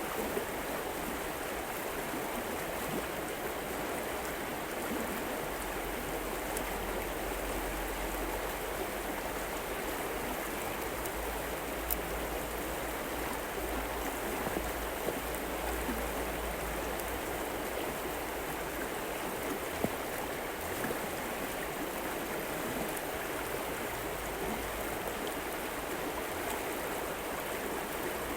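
River water flowing steadily in an even rush, with a few faint ticks over it.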